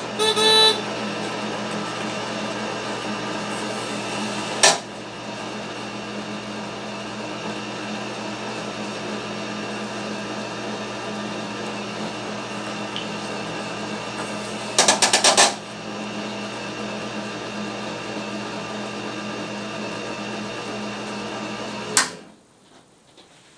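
Scantron 888P+ optical mark reader running steadily as it feeds answer forms through, with sharp clicks near the start and about 5 seconds in, a brief burst of rapid clicking around 15 seconds, and a click as it stops about 22 seconds in.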